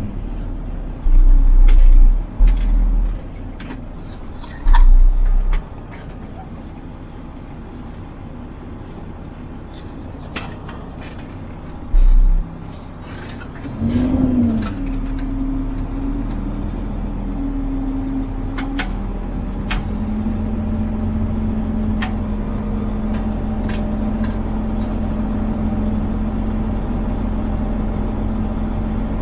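Mack truck's MP8 inline-six diesel engine running, heard from inside the cab, with light clicks and rattles and several heavy low thumps in the first few seconds and once more later. About fourteen seconds in the engine note briefly rises and falls, then the engine runs louder and steady.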